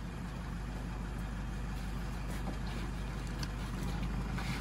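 Vehicle engine idling steadily, a low even hum.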